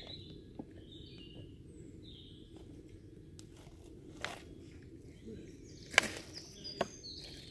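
A few sharp knocks of a knife cutting carrot ends on a makeshift chopping block, the loudest about six seconds in, with a second close behind. Birds chirp in short high calls throughout.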